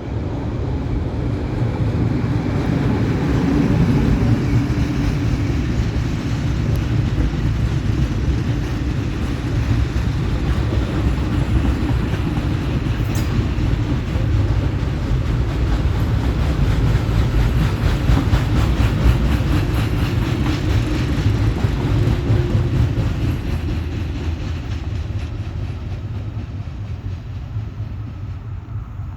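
EL2 electric industrial locomotive hauling a coal train past: a continuous heavy rumble of wheels and wagons on the rails, with clickety-clack from the rail joints, swelling and then fading away near the end. One brief sharp high sound about halfway through.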